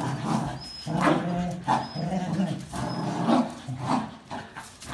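A Jack Russell terrier and two border collies growling in short repeated bursts as they tug against each other on a towel, with three brief high squeaks in between.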